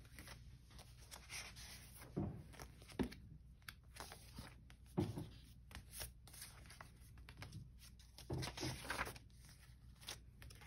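Paper pages of a thick handmade junk journal being turned and handled, rustling, with a few thumps as pages and flaps are laid down.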